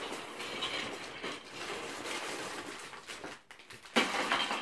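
Plastic bags of hard-plastic Lego Duplo bricks rustling and clattering as they are pulled out of the cardboard box. About four seconds in, a bag of bricks is set down on the table with a louder clatter.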